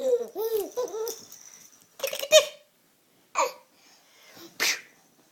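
Young child making playful vocal noises: a quick run of short up-and-down pitched sounds, then a few separate short bursts like giggles.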